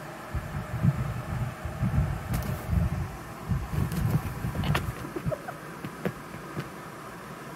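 A cat wrestling and pouncing in rumpled bed sheets: irregular soft low thumps and rustling, with a few light clicks.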